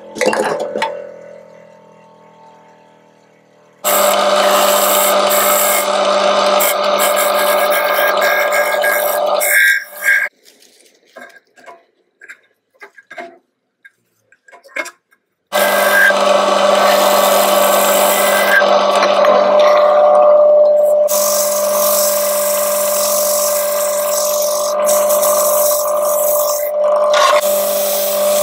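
Wood lathe running steadily, its motor hum holding a fixed pitch as a shallow Australian lacewood bowl spins and is sanded on it. A sharp knock comes at the very start. The machine sound stops for several seconds in the middle, leaving only a few small clicks, then comes back at the same pitch.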